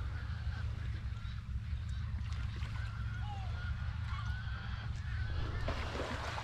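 Gulls calling: several short, thin calls scattered through, over a steady low rumble.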